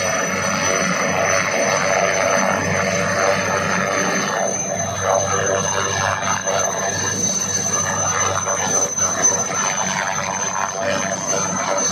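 HAL Cheetah helicopter running on the ground with its rotors turning: a steady high-pitched turbine whine over a low, even rotor drone.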